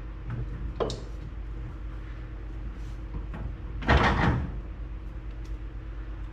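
Suspension parts being fitted together by hand: a short click about a second in, then a louder double clunk about four seconds in, over a steady low hum.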